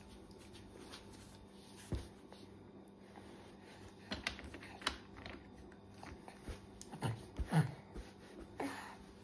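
A baby mouthing and eating spoon-fed mashed food, with scattered soft smacking and clicking mouth sounds and a few small knocks.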